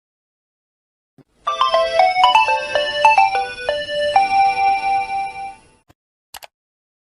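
A mobile phone ringtone: a quick run of bright, bell-like synthesized notes, ending on one long held note, about four seconds in all, starting after a second and a half of silence.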